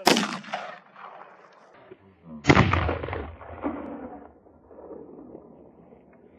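Two hunting rifle shots about two and a half seconds apart, each echoing off for about a second; the second is the louder and heavier.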